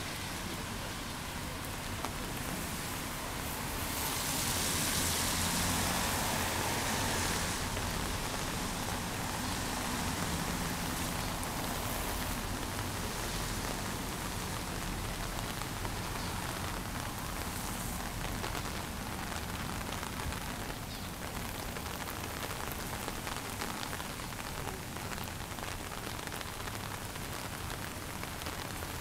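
Steady rain falling, an even hiss that swells louder for a few seconds about four seconds in, over a low steady rumble.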